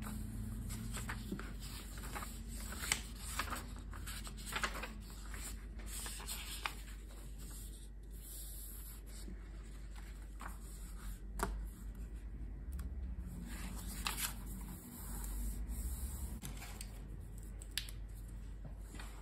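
Hands rubbing, smoothing and turning the pages of an Amazon Basics paper notebook: scattered soft paper rustles, swishes and light taps over a low steady hum.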